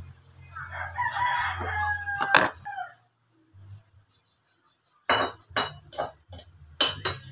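A rooster crowing, one call of about two seconds starting about a second in, followed by a sharp click. After a short quiet gap, a handful of sharp knocks and clinks of cookware as a metal cooking pot on a gas stove is handled.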